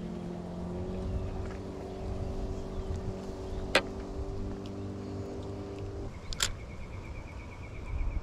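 Steady engine drone under a low rumble of wind on the microphone; the drone stops about six seconds in. Two sharp clicks, one partway through and one just after the drone stops, then a fast run of light ticks.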